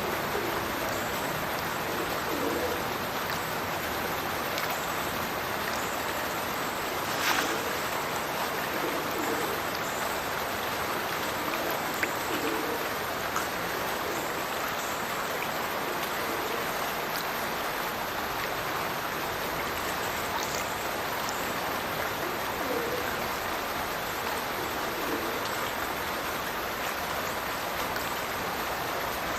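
Stirches Burn spilling from its culvert into the River Teviot: a steady rush and splash of falling water, with a few low gurgles and one brief louder splash about seven seconds in.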